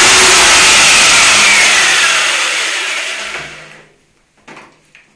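Electric rotary hammer drill boring into a tiled wall with a masonry bit, running loud and steady. The trigger is then released: the motor's whine falls in pitch and fades out about four seconds in.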